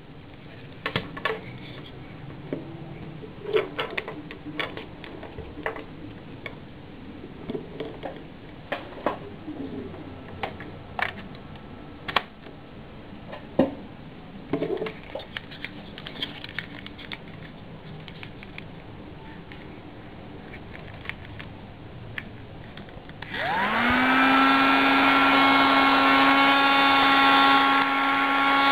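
Scattered clicks and knocks of a small plastic device being handled. About 23 seconds in, a mini USB keyboard vacuum cleaner's small motor switches on, spins up with a quick rising whine, and runs steadily with a humming whine.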